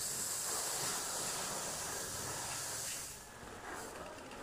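B. Super rice seed pouring from a sack into a steel tub, a steady high hiss of falling grain that stops about three seconds in.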